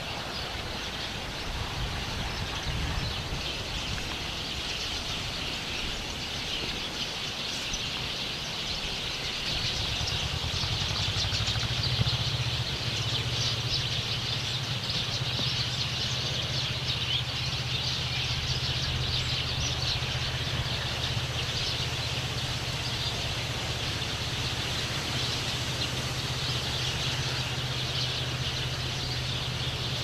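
Many small birds hidden in a tree chirping densely and without pause, with a steady low drone of traffic from an express road that settles in about a third of the way through.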